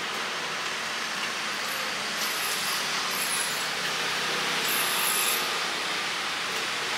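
Steady sizzling hiss from a flat-top griddle at a street-food stall, with no distinct knocks.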